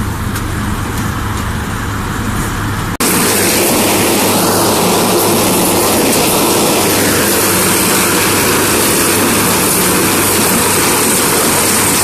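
Corn harvester running: a steady low engine drone, then after a cut about three seconds in, a louder, even rushing noise from the machine at work.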